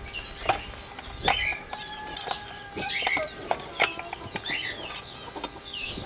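Birds chirping in short, repeated calls, with several sharp clicks and cracks as a knife cuts into a hard, unripe-skinned pumpkin.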